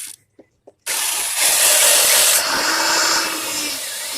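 Electric hand drill boring holes in a go-kart engine-mount plate: a short run that stops just after the start, then a longer, louder run from about a second in that gradually eases off toward the end.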